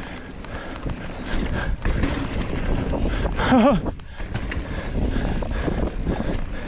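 Riding noise of a mountain bike on a dirt trail: wind buffeting the microphone over the rumble and rattle of the bike on the ground. A short wavering, falling tone about three and a half seconds in.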